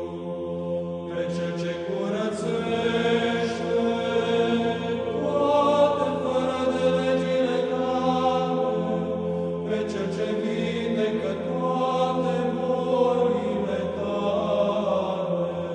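Orthodox church chant: male voices singing a slow melody over a steady held drone.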